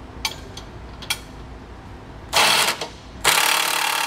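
Cordless impact wrench snugging down a suspension bolt: a few light metal clinks as the socket is fitted, then a short burst of hammering about two seconds in and a longer continuous run from about three seconds in.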